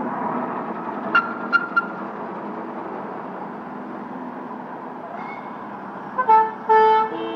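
Vintage fire engine driving past on a wet street, a steady rumble of engine and tyres. Three short high toots come about a second in, and two louder pitched notes sound near the end.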